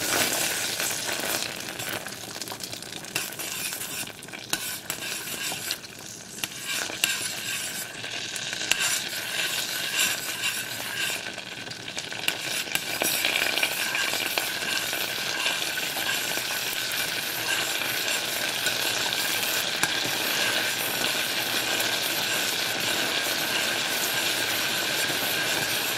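Butter melting and sizzling in a stainless steel pot over low heat, stirred with a metal spoon that clinks and scrapes against the pot. The sizzle grows louder and steadier about halfway through.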